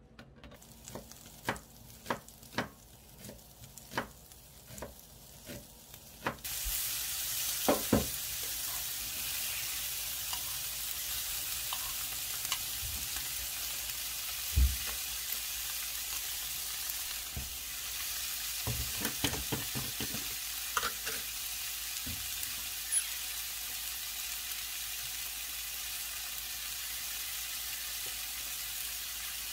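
Frying pan of egg-battered tofu slices and sliced onion: a series of light knocks for the first six seconds, then a steady sizzle sets in suddenly and runs on, with a few clunks against the pan.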